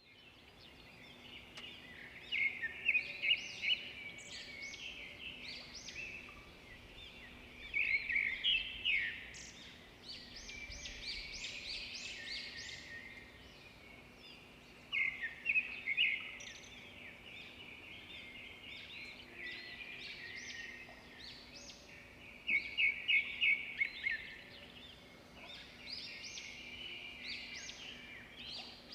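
Birds chirping, many short high chirps overlapping throughout, with louder runs of rapid chirps every six or seven seconds.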